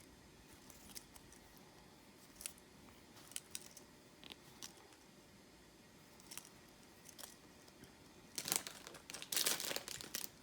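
Small objects being handled: scattered light clicks and short rustles, then a louder crinkling rustle lasting about a second and a half near the end, as squishy toys are picked up and put down.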